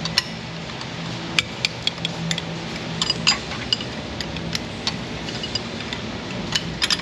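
Irregular metallic clicks and clinks of a small hand ratchet and socket worked in short strokes on a tight bolt that turns only a tiny fraction of a turn at a time.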